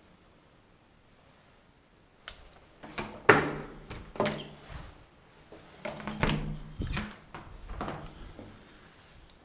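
A run of irregular knocks, bumps and scraping clatter after a couple of quiet seconds, the loudest knock about three seconds in.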